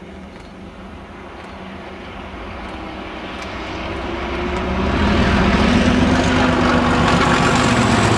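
A pair of British Rail Class 37 diesel locomotives, English Electric V12 engines working hard under power, approaching and passing close by. The engine noise grows steadily louder and is loudest from about five seconds in.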